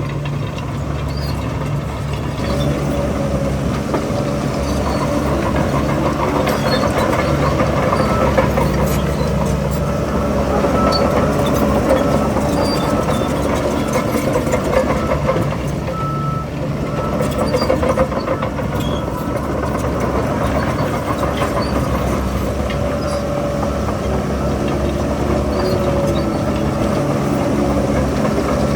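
Heavy diesel earthmoving machinery running steadily under load, the engine drone rising and falling a little.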